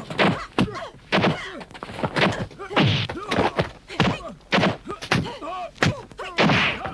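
Martial-arts film fight sound effects: a rapid run of dubbed punch and kick impacts, several a second, mixed with the fighters' short shouts and grunts.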